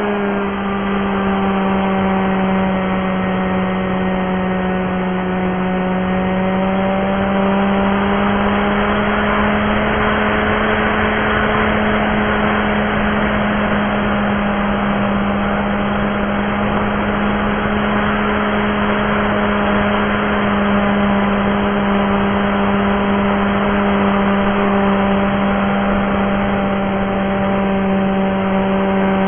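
Aircraft engine running steadily at constant power, with air rushing past the camera on board. Its pitch drops slightly in the first second and then holds.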